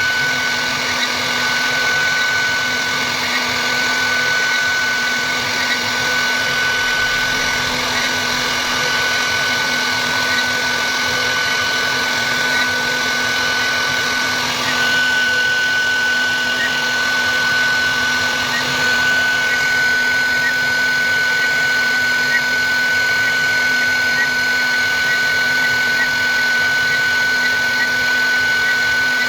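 CNC wood router running steadily: a constant high whine over a wide, even machining noise, which shifts slightly about halfway through.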